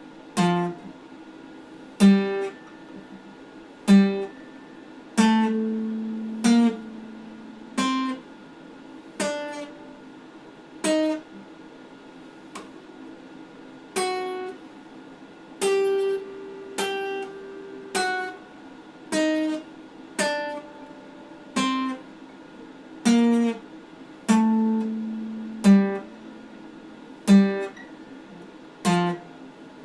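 Acoustic guitar played slowly: single plucked notes and chords every second or so, some left to ring for a second or two.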